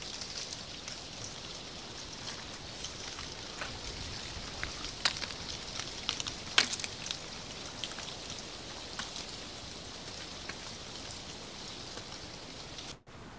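Soft, steady pattering and crackling on dry fallen leaves, with many small ticks and two sharper clicks about five and six and a half seconds in. The sound cuts out for a moment near the end.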